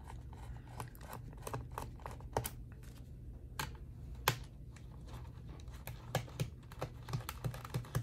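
Irregular light clicks and ticks of a small screwdriver working the captive screws of a laptop's bottom cover, the metal tip catching and turning in the screw heads, over a faint low hum.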